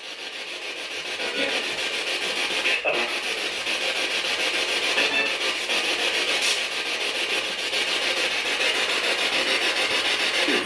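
Steady hiss of radio static from a spirit box sweeping through stations, played through an external speaker, with a couple of brief breaks in the noise.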